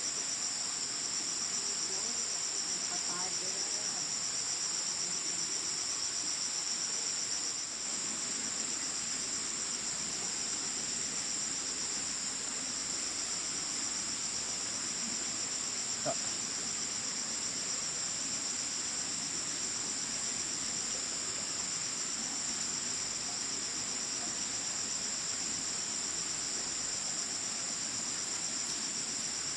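Steady, high-pitched chorus of insects droning without a break, with a single faint click about halfway through.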